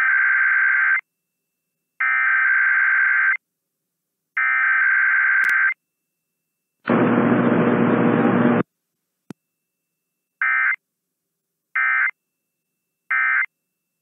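Emergency Alert System Required Weekly Test tones from an AM radio station: three screeching SAME digital header bursts of about a second each. Then a rough, noisy tone lasts under two seconds, followed by three short end-of-message data bursts.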